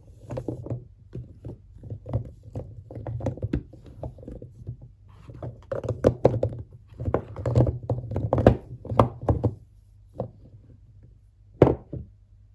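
Bars of soap and their packaging handled by hand: a quick run of soft taps and thunks that thins out to two single knocks near the end.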